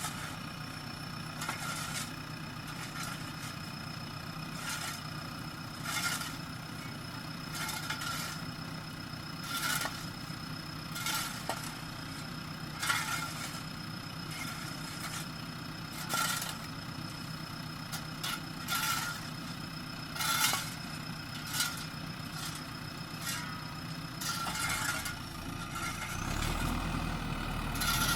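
JCB backhoe loader's diesel engine running steadily with a high whine over it, broken by sharp clanks and scrapes every second or two. The engine gets louder and deeper near the end.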